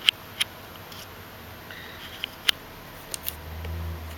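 Short sharp clicks, about six in all, as the front-panel keys of an OWON HDS1022M-N handheld oscilloscope are pressed to step through its menus. A brief low hum comes in near the end.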